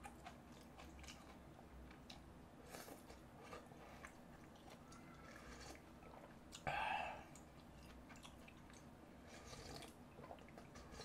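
Faint close-up eating sounds of mala tang: chewing with many small wet mouth clicks. One brief louder mouth sound comes about two-thirds of the way through.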